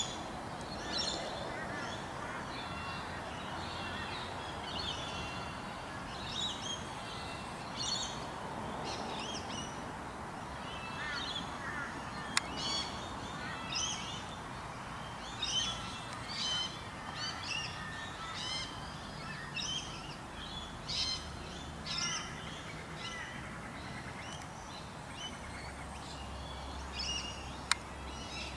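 Small birds chirping in short, repeated high calls over steady background noise, with two sharp clicks, one about twelve seconds in and one near the end.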